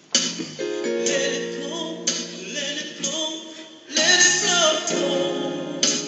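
A man singing along to a backing track with a strong beat about once a second.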